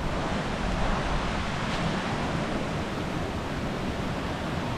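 Steady rush of a fast-flowing river in spate, an even wash of water noise with no breaks.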